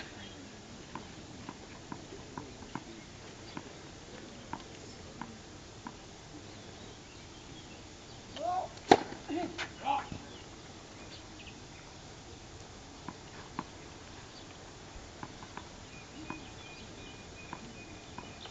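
Quiet outdoor spectator chatter with scattered faint ticks. About nine seconds in comes one sharp, loud crack, with a few short calls from nearby voices around it.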